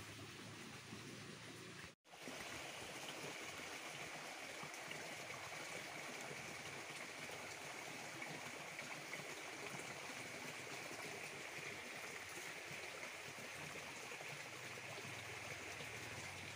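Water of a small ditch stream flowing and trickling steadily. The sound drops out completely for a moment about two seconds in, then returns a little louder and stays steady.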